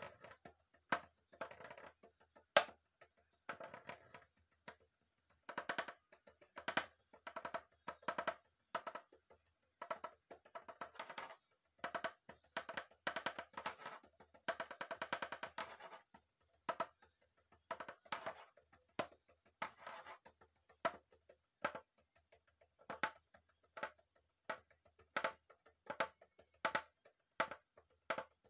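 Homemade percussion: a hollow pink plastic pig tapped with a thin stick in uneven phrases of short, knocking strokes, with a quick run of rapid strokes about halfway through.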